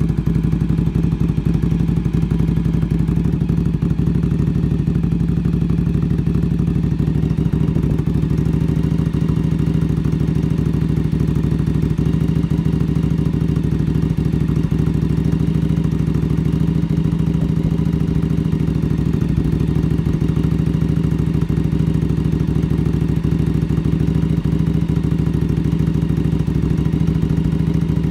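1981 Yamaha XV750 Special's air-cooled V-twin engine, freshly rebuilt, running steadily at an even speed on its first start-up.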